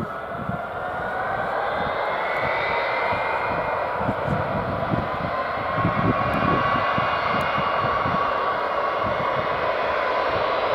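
Boeing C-17 Globemaster III's four Pratt & Whitney F117 turbofans running at taxi power: a steady jet whine whose tones slowly rise in pitch, growing louder over the first couple of seconds as the aircraft swings toward the microphone.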